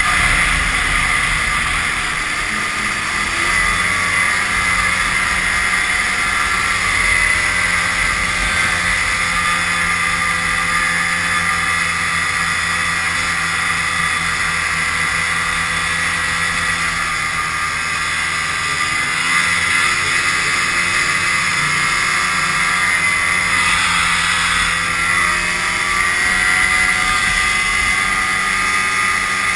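Vintage snowmobile's two-stroke engine running steadily at trail speed, heard from on board the sled. The engine note dips and rises slightly a few times in the second half.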